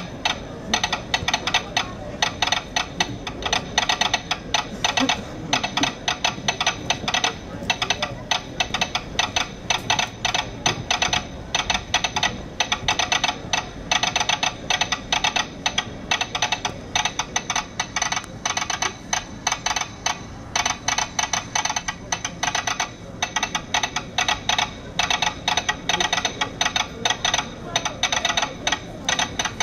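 Rapid, irregular clicking, several sharp clicks a second, over a low steady background.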